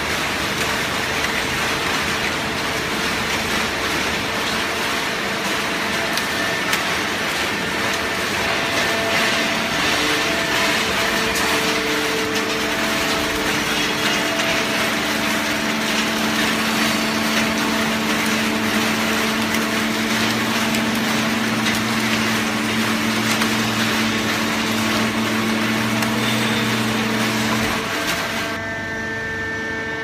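Horizontal hydraulic baler with feed conveyor running: loud, steady machinery noise with a steady hum. A lower hum joins about two-thirds of the way through. Near the end the noise drops away, leaving a few steady tones.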